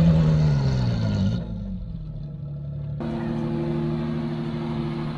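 Unimog off-road truck's engine pulling up a sand slope, its revs falling over the first second and a half; after a short muffled stretch it runs at steady revs.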